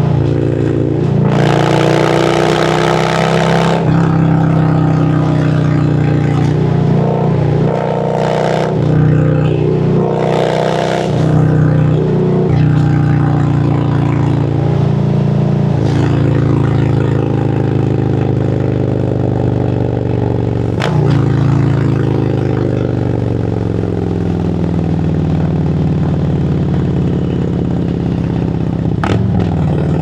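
2017 Harley-Davidson Road Glide Special's Milwaukee-Eight 107 V-twin running under way, its pitch rising and falling with the throttle and gear changes. A few brief, loud rushes of noise come in the first dozen seconds.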